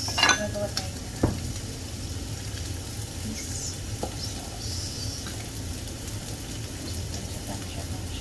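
Food sizzling in hot oil in a pan, with a few clinks of a utensil against the pan in the first second or so.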